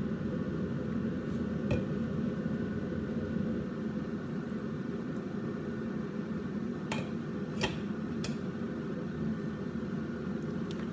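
Steady low hum of kitchen cooking noise, with a few sharp clinks of a utensil against cookware, three of them close together about seven to eight seconds in.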